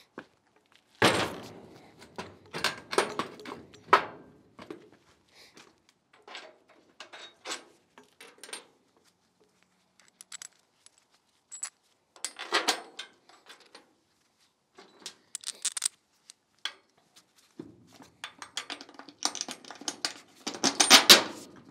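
Steel crane parts, bolts and hand tools clanking and clinking against a steel diamond-plate trailer deck as a truck bed crane's mast is fitted to its mount, in irregular clusters with quiet gaps between them.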